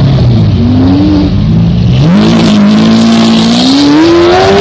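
Race car engine revving. Its pitch dips early on, then climbs steadily through the second half, and the sound starts and stops abruptly at a level far above the surrounding talk.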